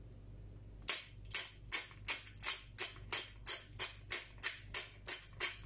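Hand-twisted pepper grinder grinding peppercorns in short rasping strokes, about three a second, starting about a second in.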